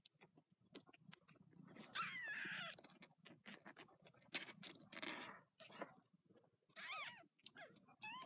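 Week-old kittens giving short, high-pitched mews, one about two seconds in, another near seven seconds and a third beginning at the very end, over soft rustling as they squirm against their mother on the bedding.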